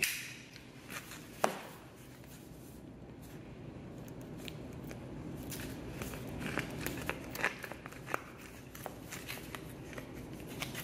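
Utility knife cutting a piece off an epoxy putty stick through its plastic wrapper, with crinkling of the wrapper and scattered sharp clicks. The clicks come thickest in the middle of the stretch, with one sharp click about a second and a half in.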